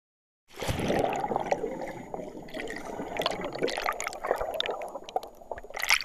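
Water bubbling and gurgling with many irregular pops and small splashes. It starts about half a second in and cuts off suddenly at the end.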